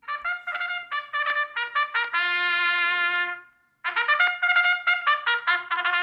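Brass goal-song music led by trumpets. A run of quick, short notes leads into one note held for about a second; after a short break comes another fast run of short notes.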